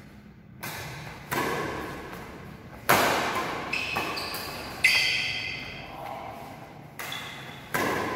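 Badminton rally: rackets striking the shuttlecock roughly once a second, each hit a sharp crack with an echoing tail in the hall. Short high squeaks come in between two of the hits.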